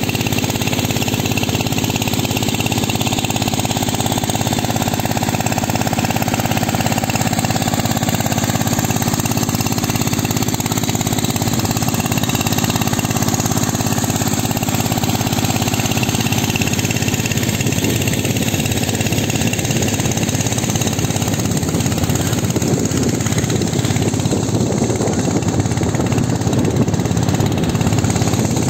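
Small single-cylinder petrol engine driving an irrigation water pump, running steadily at a constant speed, with water gushing from the pump's outlet pipe.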